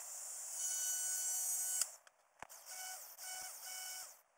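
DeWalt angle grinder with a cut-off disc running with a steady high whine, first for about two seconds, then in three short bursts.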